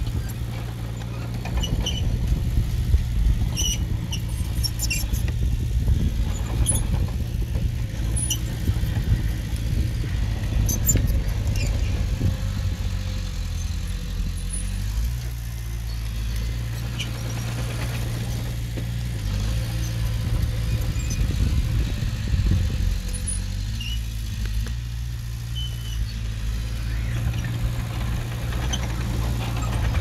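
Heavy diesel engine of earthmoving machinery running steadily under work, its pitch shifting a little about halfway through, with light metallic squeaks and clicks over it.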